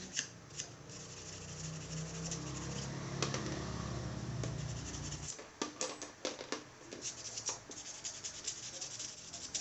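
Sandpaper being rubbed by hand over a trimmed engine part, a series of short rasping strokes that come quicker and more distinct in the second half. A low hum underneath stops about five seconds in.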